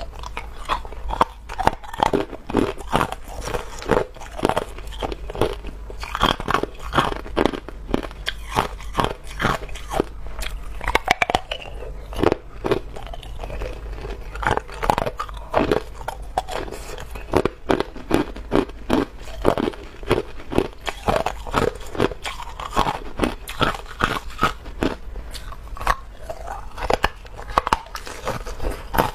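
Hard clear ice being bitten and chewed, a continuous run of sharp, irregular crunches and cracks heard close up.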